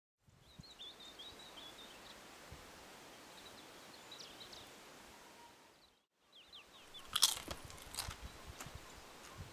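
Faint outdoor ambience with short high bird chirps, then, about seven seconds in, a person biting and chewing a crunchy snack: a loud crunch first and a few more over the next second or so.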